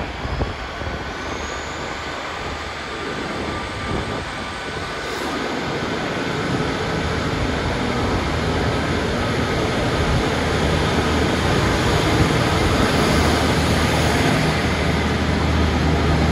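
A train's diesel engine running with a low steady hum that grows gradually louder, over a wash of rail and wind noise; two brief knocks right at the start.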